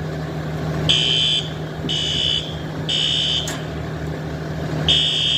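Building fire alarm sounding the three-pulse evacuation pattern: three high-pitched half-second beeps a second apart, a pause, then the next group starting near the end. A steady low hum runs underneath.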